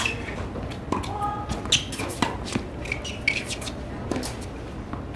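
Tennis practice rally on a hard court: a string of sharp racquet strikes and ball bounces, the loudest about two seconds in, with faint voices behind.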